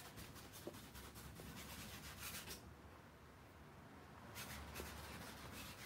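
Faint, quick scratchy strokes of a paintbrush working oil paint onto canvas, stopping for about two seconds midway and then resuming.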